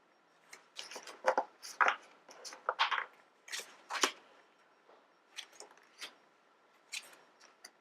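Tarot cards being handled and turned over one after another: short, irregular slides and flicks of stiff card stock, busiest in the first few seconds.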